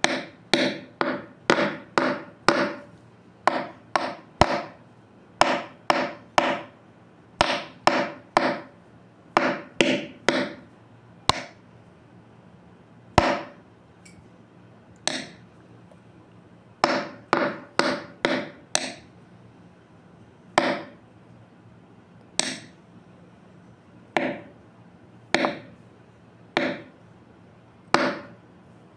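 Repeated sharp knocking strikes, each with a short ringing tone. They come in quick runs of about two a second at first, then spread out to one every second or two toward the end.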